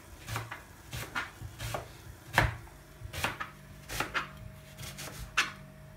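Kitchen knife slicing an onion on a plastic chopping board: a dozen or so irregularly spaced chops, the loudest about two and a half seconds in.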